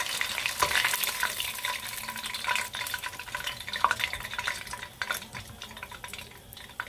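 Hot frying oil sizzling and crackling in a pot as the last chicken wing is lifted out and floating browned bits are skimmed off, with a few sharp clicks. The sizzle dies down steadily over the last few seconds.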